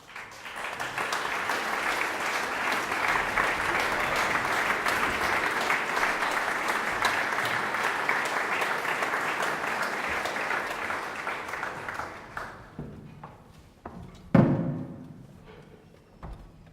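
Audience applauding for about twelve seconds, then dying away. A few knocks follow, and near the end a loud thump with a short low ringing tone.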